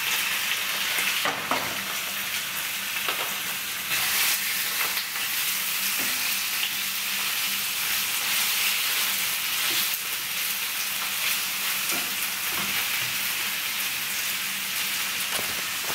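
Chicken pieces sizzling in a hot frying pan as they are stirred with wooden spatulas, the steady sizzle broken now and then by short knocks and scrapes of the spatulas against the pan.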